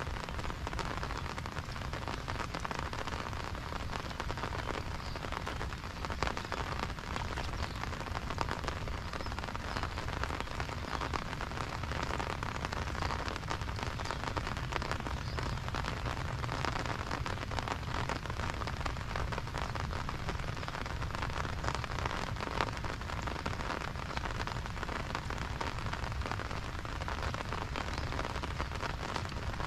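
Steady rain falling on surfaces, a continuous patter made of many small drop hits.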